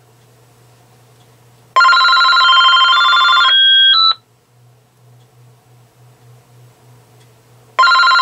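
AT&T EL52419 DECT 6.0 cordless phone ringing with a melodic electronic ringtone of stepping notes: one ring of about two and a half seconds, a pause of about three and a half seconds, then the next ring starts near the end.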